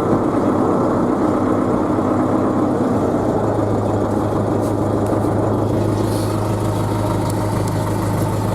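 Tractor engine running steadily at idle, with a steady low hum setting in about three seconds in.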